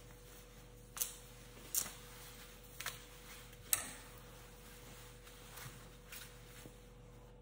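Sharp clicks while a plastic comb and hands work at wet hair: four loud ones about a second apart, then a few fainter ticks near the end.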